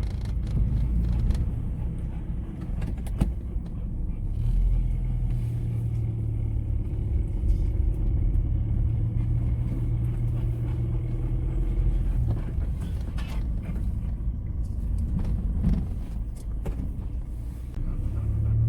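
Car engine and road rumble heard from inside the cabin while driving. A steady low engine drone comes in about four seconds in and fades around twelve seconds.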